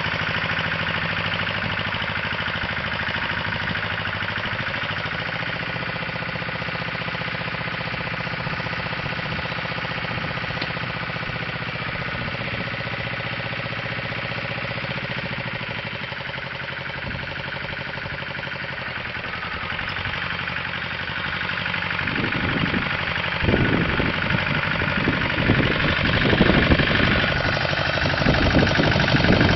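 Grillo 131 two-wheel walking tractor's 12 hp engine running steadily under load as it pulls a plough through the soil. It grows fainter towards the middle as the machine moves off, then louder again in the last third as it comes close, with rattling knocks near the end.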